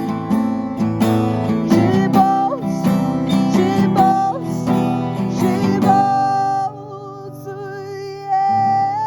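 Acoustic guitar strummed in a steady rhythm; about six seconds in the strumming stops and a held chord rings on as the song closes.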